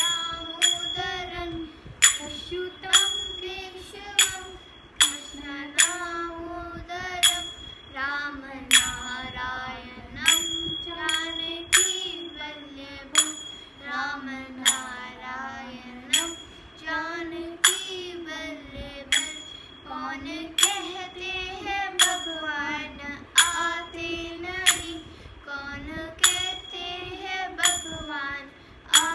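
A girl singing a Hindi devotional bhajan, keeping time on a pair of small hand cymbals (manjira). The cymbals are struck about once a second, sometimes twice in quick succession, and each clash rings briefly.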